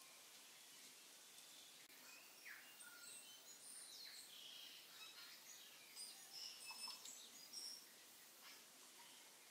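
Near silence: faint steady background hiss with scattered, faint, high bird chirps, busiest in the middle.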